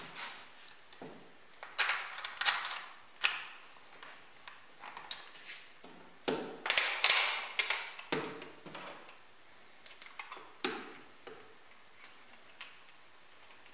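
Scattered metallic clicks, taps and short scrapes as steel parts of a homemade power-file (belt-sander) attachment are handled and fitted onto an angle grinder's gearhead, with a denser clatter around the middle.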